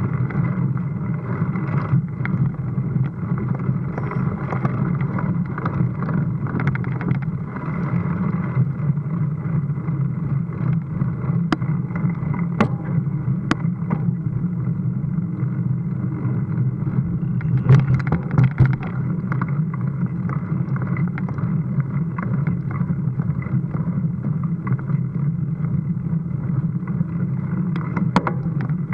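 Steady rumble and wind noise of a mountain bike riding up rough village streets, with a few sharp clicks and knocks, the loudest a cluster about two-thirds of the way through.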